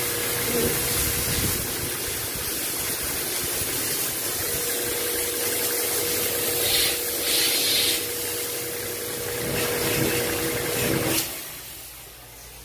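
A belt-driven plunger pressure-washer pump and its electric motor run with a steady whine, along with a loud hiss of water spraying. The sound cuts off about eleven seconds in.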